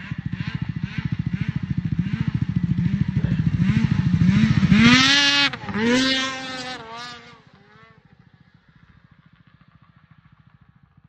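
Snowmobile engine revving in repeated rising surges as the sled comes toward and passes close by, loudest about five seconds in. Its pitch then drops and it fades to a faint steady hum as it rides away.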